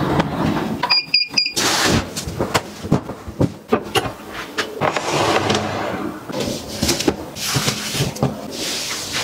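Household handling sounds: a window sliding open, three quick high beeps about a second in, then fabric rustling and light knocks and clicks as bed linen and a crib canopy are pulled down.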